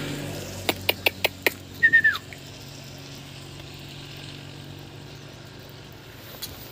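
A quick run of five sharp clicks, then a short squeak that falls in pitch. The low hum of a vehicle that has just passed fades under them.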